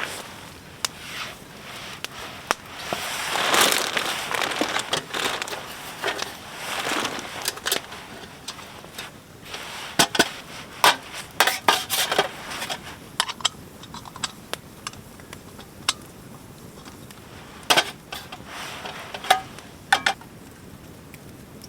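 Clinks and knocks of metal cookware and utensils being handled, with a couple of rushing swells of noise in the first few seconds.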